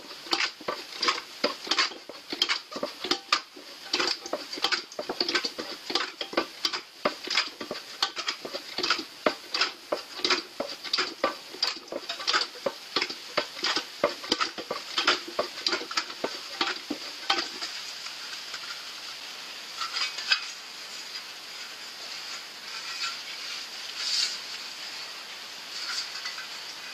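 Manual sheet-metal shrinker-stretcher clacking as its jaws grip and squeeze the edge of an aluminium mudguard blank, about two to three strokes a second, shrinking and stretching the edge to curve it. The strokes stop about two-thirds of the way through, leaving a few clicks and the rustle of the sheet being handled.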